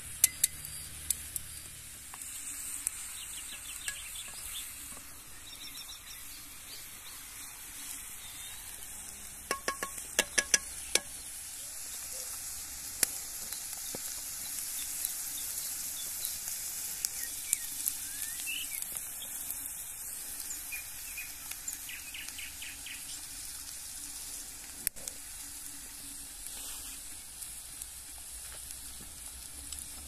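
Food frying and sizzling in a pan with a steady hiss, broken by scattered sharp pops and crackles, several in quick succession about ten seconds in.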